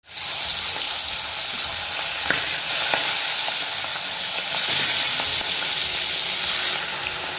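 Giant freshwater prawns (golda chingri) sizzling in hot mustard oil in an aluminium kadai. It is a steady, dense frying hiss with a few sharp crackles, as the once-fried prawns go back in for a second frying.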